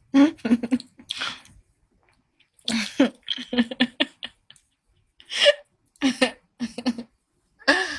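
A woman's voice in short broken bursts, with pauses between them.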